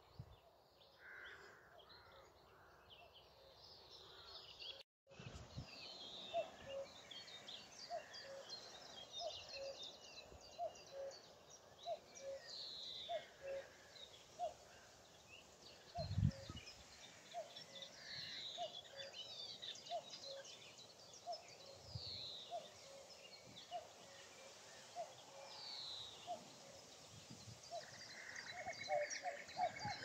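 Birdsong from several birds. A high falling note repeats every few seconds over a steady string of short, lower notes, a little over one a second. There is a soft low thump about halfway through.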